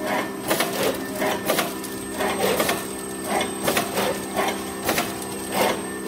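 Automatic film-wrapping packing machine for air-dry clay running: a steady motor hum with short mechanical clicks and clatter repeating about twice a second.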